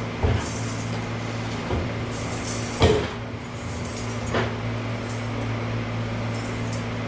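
A heavy chunk of cast aluminium being handled and set on a scale: a few separate knocks and clunks, the loudest about three seconds in, over a steady low hum.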